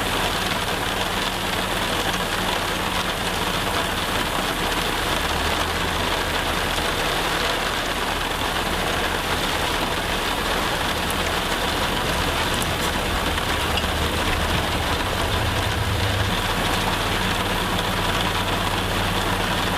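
Steady hiss of rain falling, with the low, even hum of a heavy machine's engine running underneath; the engine hum grows stronger for several seconds in the middle.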